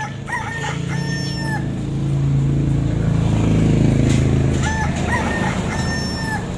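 A rooster crowing twice, each crow a few short notes and then one long held note, the second about four seconds after the first. A low rumble swells under it and is loudest between the two crows.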